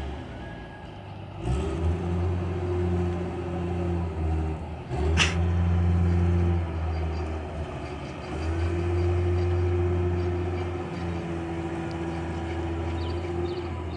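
Hand tractor engine running while ploughing a muddy rice paddy, its steady low note swelling and easing several times as it works. A single sharp knock about five seconds in.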